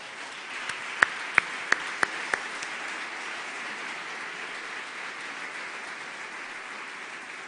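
Audience applauding steadily, with five louder, sharper claps close by, about three a second, starting about a second in.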